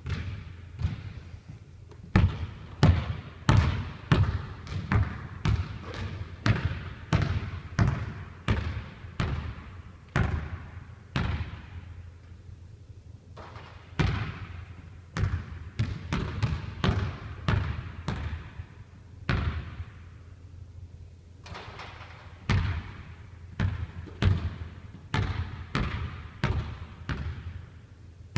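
A basketball bouncing on a hardwood gym floor, dribbled in runs of regular bounces about half a second apart with short pauses between, each bounce echoing in the large hall. A steady low hum runs underneath.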